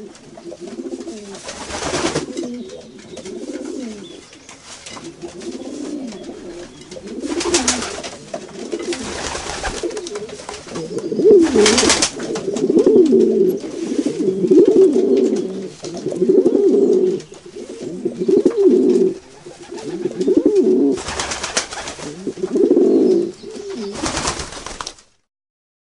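Pigeons cooing, a run of low, repeated coos that grows louder and more continuous about halfway through, with a few short rustling noises among them. The sound stops abruptly near the end.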